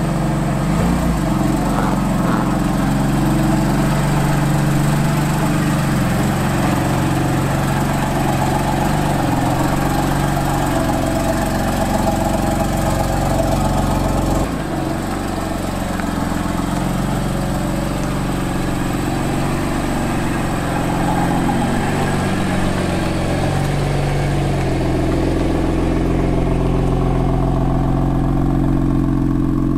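BMW M3's twin-turbo straight-six idling with a steady low note while the car rolls slowly at walking pace.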